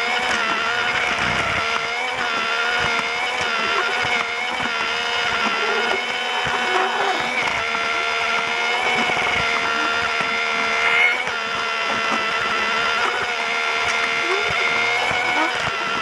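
Electric motor of a battery-powered Lego Duplo toy train running steadily with a wavering gear whine, wheels clicking over the plastic track, heard close up from on board. A brief louder jolt comes about eleven seconds in.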